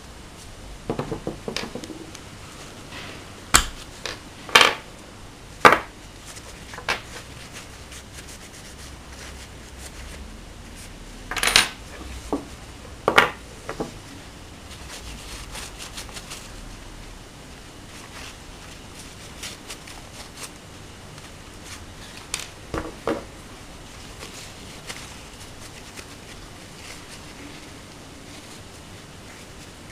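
Small metal parts of a disassembled Hi-Capa 3.8 airsoft pistol clinking and tapping against each other and the wooden tabletop as they are handled and wiped with a tissue. Scattered sharp clicks come in a cluster over the first six seconds, another around twelve seconds in, and a last few a little past twenty-two seconds.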